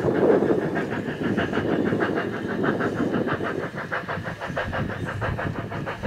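Andrew Barclay 0-4-0 saddle-tank steam locomotive chuffing as it approaches, its exhaust beats coming in a fast, even rhythm with hissing steam.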